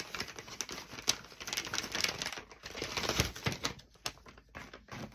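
A gift bag being opened and its contents handled: a dense run of rustling and small clicks.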